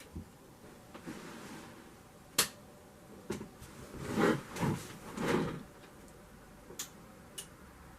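Hands handling computer hardware in a PC case: a sharp click, then a few scraping, rubbing movements and two smaller clicks near the end.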